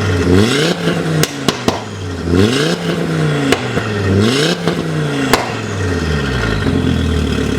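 Audi RS3's 2.5-litre turbocharged five-cylinder engine blipped three times through an Armytrix valved exhaust, each rev rising and falling quickly, with sharp pops and bangs as the revs drop. Near the end it settles to a steadier note.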